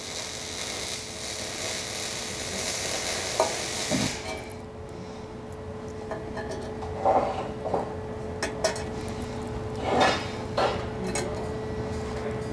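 Cage nuts being pressed and snapped by hand into the square mounting holes of a metal skid plate panel: a soft hiss for the first few seconds, then a string of small, irregular metal clicks and clinks. A faint steady hum lies underneath.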